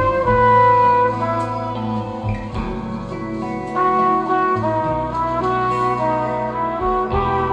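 Instrumental jazz played through Fyne Audio F1-8 hi-fi loudspeakers, with a trumpet-like brass lead holding long notes that step to a new pitch every second or so over a steady low bass.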